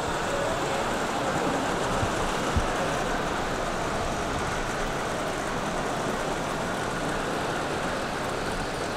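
Steady, blurred hubbub of a large exhibition hall full of visitors, with two brief low knocks about two seconds in.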